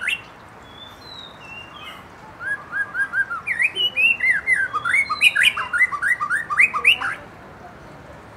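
White-rumped shama (murai batu) singing. A quick burst of rising notes at the start and a few soft whistles lead into a long, loud run of rapid whistled and chirped notes sweeping up and down. The run stops abruptly near the end.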